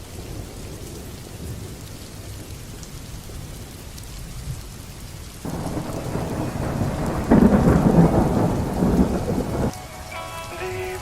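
Rain falling with a low rumble of thunder. About halfway through a louder peal of thunder swells in, peaks, and cuts off suddenly, and music begins near the end.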